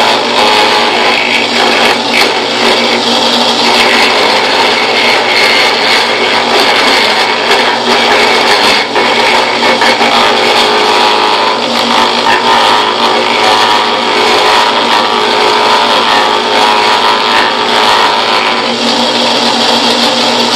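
Harbor Freight drill press spinning a router bit, its motor running steadily while the bit cuts and smooths the edge of a hand-held wooden spoon blank.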